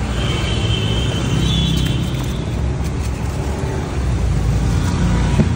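Steady low rumble of road traffic, with a thin high tone over it for about the first two seconds.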